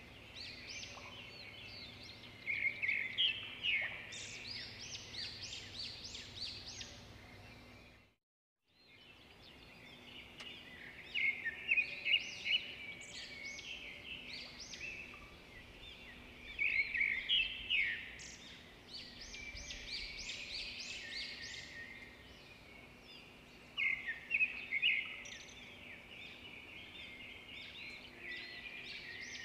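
Small birds chirping and chattering in repeated bursts over a faint steady hum. The sound cuts out completely for about half a second around eight seconds in.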